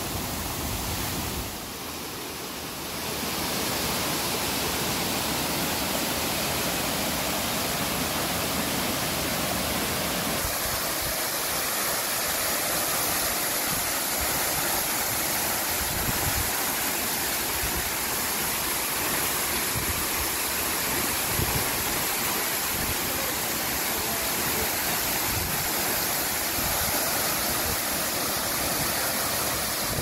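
A 75 m waterfall, Kiyomizu Falls, pouring into its plunge pool: a steady rush of falling water, briefly a little softer about two seconds in.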